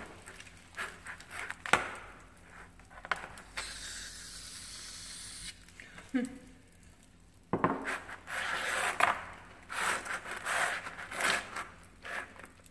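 An aerosol can of shaving cream spraying foam in one steady hiss of about two seconds, a few seconds in. Around it, hands squish, smear and rub the foam and paint on a plastic tray, with wet rubbing and scraping sounds that come thickest in the second half.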